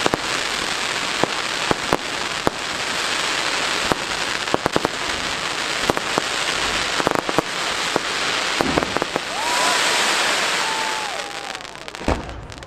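Fireworks display: rising comets and crackle effects fizzing and crackling continuously, with many sharp bangs throughout. About nine seconds in a louder hiss swells, with a brief wavering whistle, and a final bang near the end is followed by the noise dying down.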